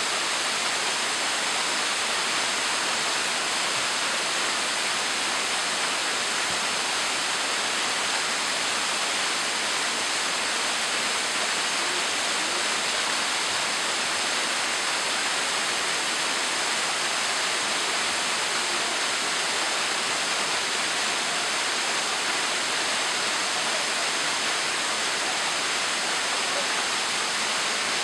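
Small waterfall falling over stepped rock ledges: a steady, even rush of splashing water that does not change.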